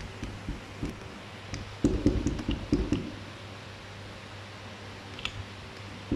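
A hand turning and handling the shaft coupling of a polyurethane casting machine's metering pump: soft rubbing and handling noises with a cluster of dull knocks about two seconds in, over a steady low hum.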